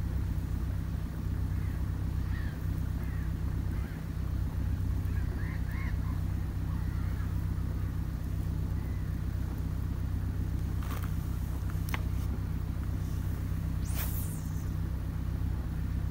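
A steady low engine hum, with faint bird calls in the first half and a few sharp clicks near the end.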